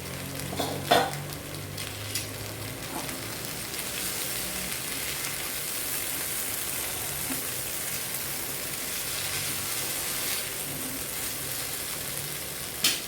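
Brinjal and potato sabzi sizzling in a pan with a steady hiss, just uncovered after cooking on a low flame. A sharp metal knock comes about a second in and another near the end.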